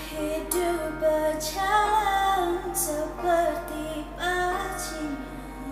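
A woman singing a melody in short phrases over a backing track.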